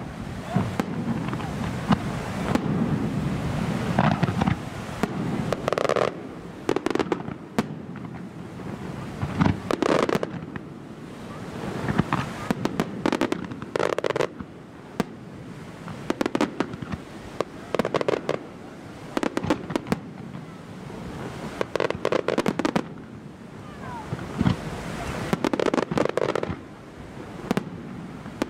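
Aerial fireworks display: aerial shells bursting one after another, with clusters of sharp bangs every couple of seconds.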